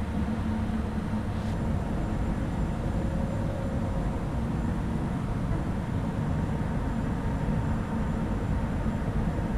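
Steady hum and whir of a stationary Alstom Citadis 302 tram's onboard equipment, heard from inside the car with the doors open, with a faint high whine over a low drone.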